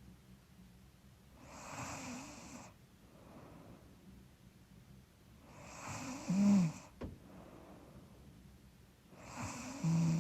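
A woman snoring in her sleep: three slow, noisy breaths about four seconds apart, each with a short low snoring rasp, the loudest about halfway through. A stuffy nose, which she suspects, makes the snoring. A faint click comes about seven seconds in.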